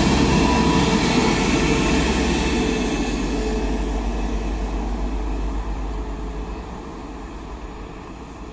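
A 36WEhd (Newag Impuls) regional multiple unit departing and pulling away. Its steady running rumble with a faint hum fades evenly as it recedes.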